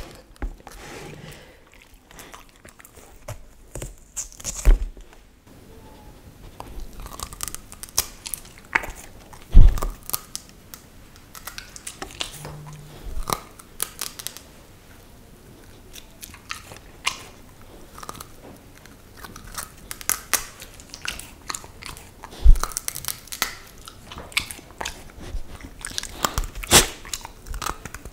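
A Samoyed biting and chewing raw broccoli close to the microphone: irregular crisp crunches, with two louder bites about ten and twenty-two seconds in.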